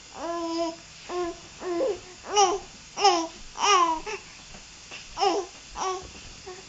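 Three-month-old baby cooing and babbling: a string of about nine short voiced coos, each rising and falling in pitch, with brief pauses between them.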